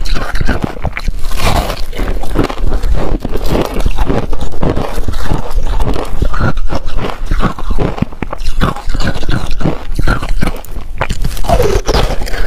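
Close-miked biting, crunching and chewing of a block of white ice coated in passion fruit pulp, a dense run of irregular crackling crunches.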